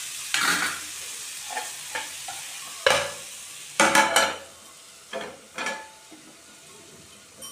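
Bitter gourd vegetable frying in a pan, sizzling steadily while a spatula scrapes and stirs it in a few loud strokes. About four seconds in the sizzle drops away, leaving a couple of soft knocks.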